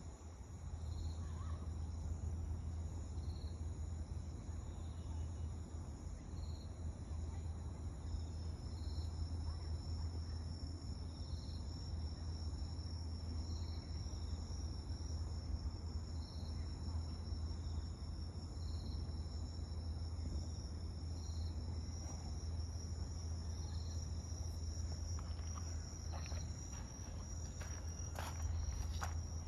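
Night insects such as crickets calling: one gives a short high chirp about every two and a half seconds, and a steady high trill joins about eight seconds in, over a steady low hum. A few faint clicks near the end.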